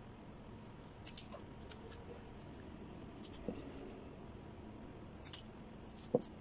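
Graphite pencil drawing on a sheet of paper: faint, short scratching strokes, with a few soft knocks, the loudest near the end as a rubber eraser is put to the paper.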